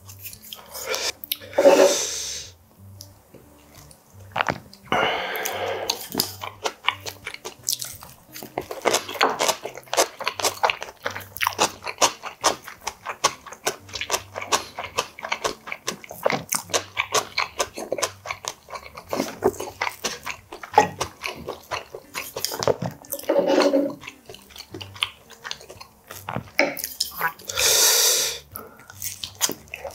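A man eating close to the microphone: chewing with many small wet mouth clicks and crunches, and a few longer, louder sounds about two and five seconds in and again near the end.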